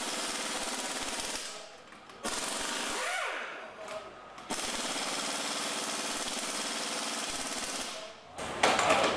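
Impact wrench hammering on a car's wheel lug nuts in three bursts, the last and longest lasting about three and a half seconds. Its motor winds down with a falling whine in the gaps between bursts.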